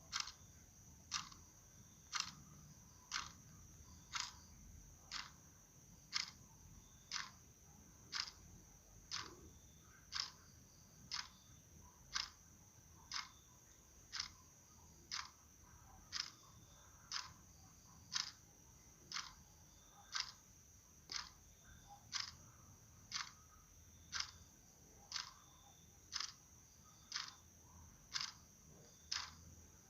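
Steady, evenly spaced ticking, about one click a second, like a clock, over a faint continuous high-pitched whine.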